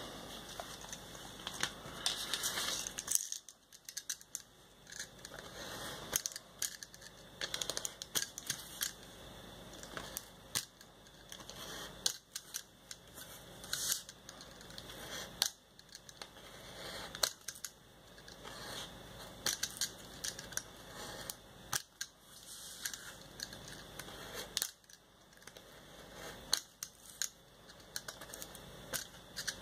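Snap-off utility knife blade cutting through paper: a run of short, irregular clicks and scratches as the blade is drawn along the leaf outlines.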